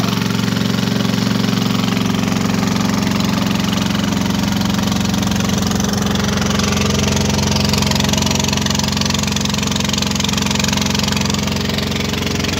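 Small wooden river boat's engine running steadily at an even pace, over the rush of water along the hull.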